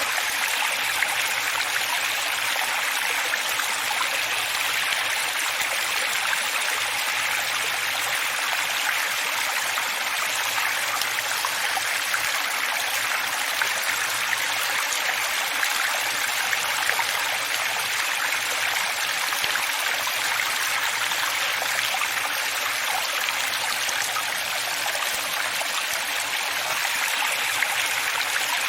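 Running water, a steady even splashing rush with little deep rumble, unchanging throughout.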